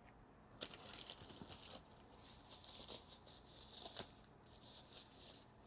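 Faint rustling and crinkling of packaging with a few light clicks, as the parts of a desoldering station are handled and taken out of their box.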